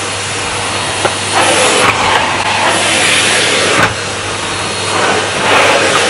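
Numatic Hetty cylinder vacuum cleaner running on full suction: a steady low motor hum under a loud rush of air through the hose, swelling and dipping a little as the nozzle is worked over a rug picking up crumbs.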